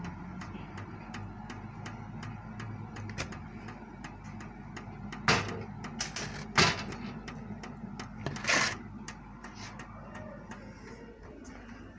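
Plastic food tub being handled, knocking and rattling three times, loudest about two-thirds through, over a run of faint quick clicks.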